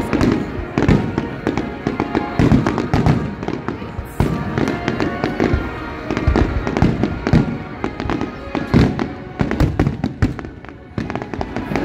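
Aerial fireworks display: shells bursting overhead in quick succession, a dense run of loud bangs with no let-up.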